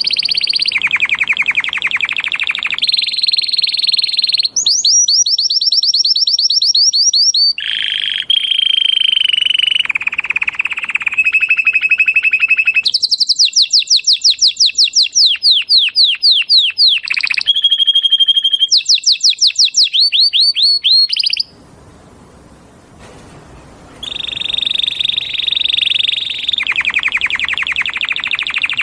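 Canary singing a long song of fast trills and rolls, switching to a new repeated phrase every few seconds, with a break of about two seconds about three-quarters of the way through.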